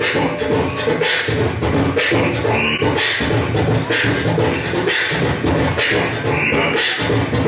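Beatboxing into a handheld microphone, amplified through a club PA: a continuous rhythm of low bass hums under repeated hissing, snare-like bursts.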